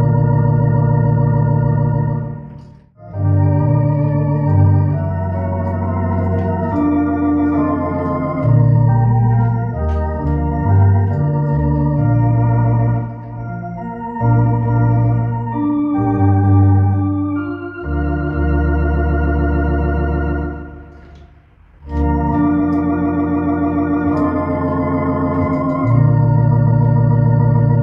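Electronic organ playing slow, sustained chords with slight vibrato, over deep bass notes from the pedalboard. The playing breaks off briefly between phrases about three seconds in and again around twenty-two seconds.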